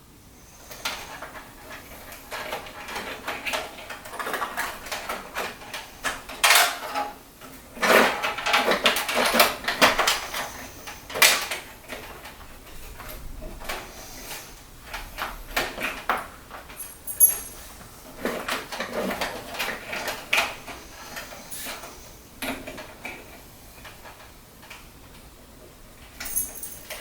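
Hands working on computer parts and packaging: irregular clicks, knocks and rustling, with a busier stretch of clatter about eight to ten seconds in and a sharp knock soon after.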